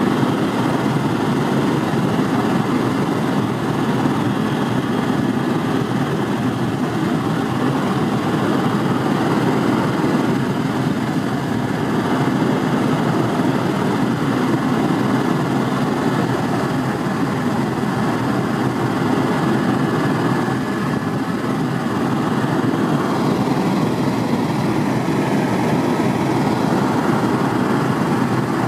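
Helicopter in flight: a steady drone of rotor and engine noise.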